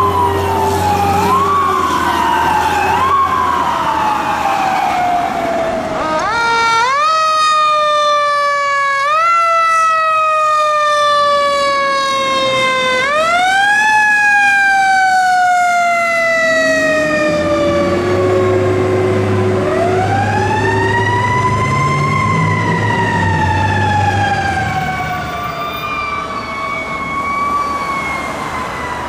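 Fire truck sirens passing at close range. First come quick rising-and-falling sweeps. Then, from about six seconds in, long wails that climb fast and slide slowly down, and later a slower wail rising and falling, over low engine rumble.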